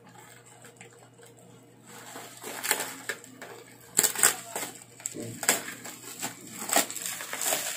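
Scissors cutting through bubble wrap, with the plastic crinkling and giving sharp snaps and crackles. It starts quietly, and the snaps come from about two seconds in.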